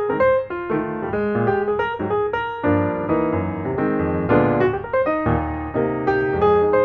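Background instrumental piano music: a melody of quickly played notes over lower bass notes.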